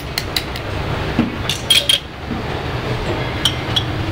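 Bar spoon stirring soda into a crushed-ice mojito in a tall glass, with a run of sharp clinks against the ice and glass, loudest about halfway through. Near the end come two ringing metallic clinks as the spoon is set in a steel shaker tin. A steady low room hum runs underneath.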